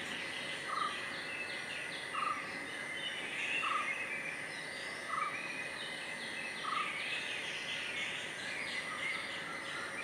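Outdoor bird ambience: a short call repeated five times about a second and a half apart, over faint high chirps and a steady high tone.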